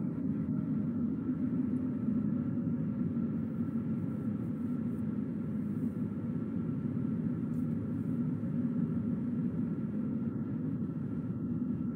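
Steady road and engine rumble of a car driving at an even pace, with a faint steady whine above it.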